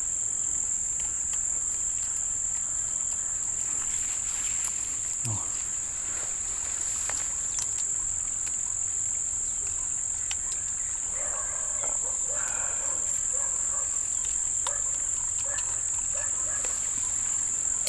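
A steady, high-pitched insect chorus shrilling without a break, with scattered faint clicks.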